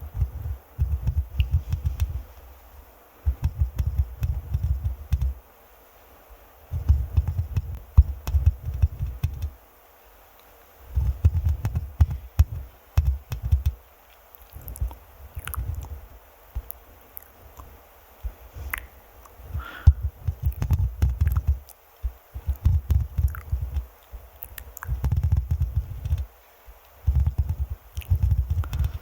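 Fingers scratching directly on a microphone, in rapid scratchy strokes heard as deep rumbling bursts a second or two long, with short pauses between them, about nine times.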